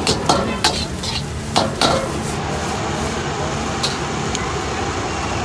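Metal spatula scraping and clanking against a steel wok of fried rice, several sharp strikes in the first two seconds, then a steady rush of the gas burner and sizzling as the wok is tossed.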